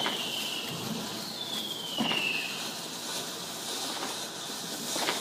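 Fireworks: two whistles falling in pitch, each about a second long, in the first two and a half seconds, and a few bangs. The loudest bang comes about two seconds in.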